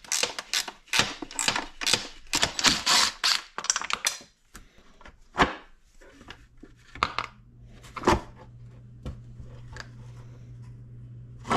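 Metal parts of a Pionjar 120 gas-powered jackhammer clinking and rattling as it is handled and taken apart on a workbench: rapid clatter at first, thinning to a few separate knocks as the machine is moved. A low steady hum comes in about six seconds in.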